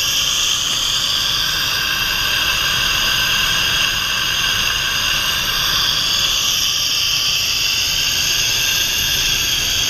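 Cold gas venting from a Chart cryogenic phase separator: a loud, steady hiss with faint whistling tones that waver slowly in pitch. It is the vent blowing off boil-off gas while the freshly filled system cools down.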